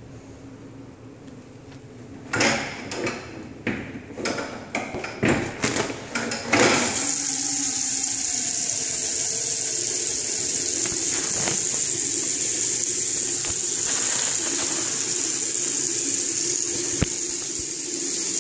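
Motion-activated sensor faucet switching on by itself about seven seconds in, with nobody at the sensor, a sign of a misbehaving sensor. The water then runs steadily into a stainless steel sink with a constant splashing hiss. Before it starts there are a few seconds of irregular rustling and knocks.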